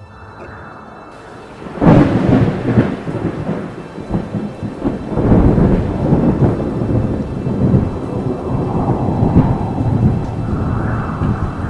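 Thunder: a sudden loud crack about two seconds in, then a long rolling rumble that swells and fades, with rain falling.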